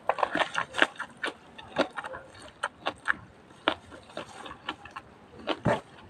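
Close-miked eating sounds: a person chewing and biting food, with irregular crisp crunches and mouth clicks.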